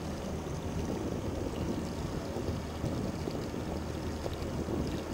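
Boat's outboard motor running steadily at low speed, a low hum under wind buffeting on the microphone.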